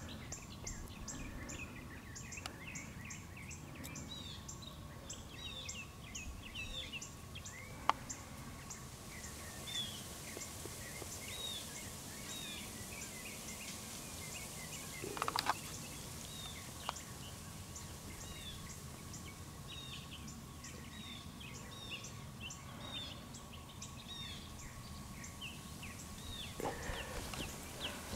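Birds chirping over and over, faint, over outdoor background noise with a faint steady high hum. Two brief soft knocks stand out, about 8 and 15 seconds in.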